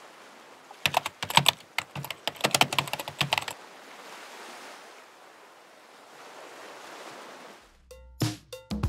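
Computer keyboard typing, a quick run of clicks for about three seconds, then a soft steady rush of ocean surf. Near the end music starts with sharp drum hits.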